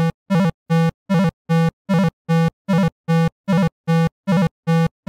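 Background music: one pitched note repeated in short, evenly spaced pulses, about two and a half a second, each with a slight wobble in pitch.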